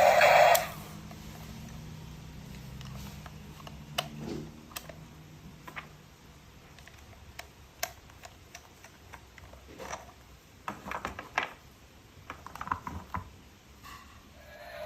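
Scattered light clicks and taps of plastic toy pieces being handled, coming in quick clusters in the second half.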